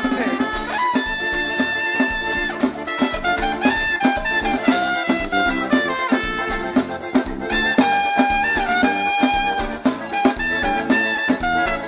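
Live band playing an instrumental passage, a horn section of trumpets and saxophone carrying held, stepping melody lines over a steady percussion beat.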